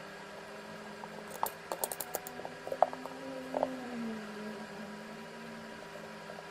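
A quick run of light clicks and small metallic taps, some with a brief bright ring, between about one and four seconds in, over a steady low hum.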